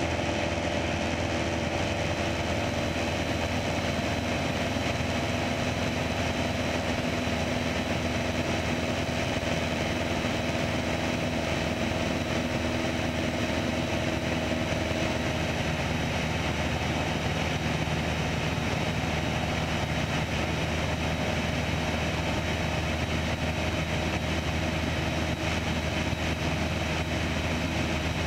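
Piper PA-28 Archer's four-cylinder Lycoming engine and propeller droning steadily in cruise, heard from inside the cabin. Its note shifts slightly about halfway through.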